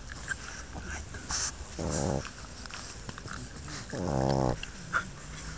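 Snoring: two drawn-out, buzzing snores about two seconds apart, the second one longer.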